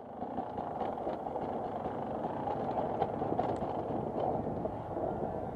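Enduro motorcycle riding on a dirt track, heard from a helmet camera: a steady, muffled mix of engine and wind noise, with a few light clicks.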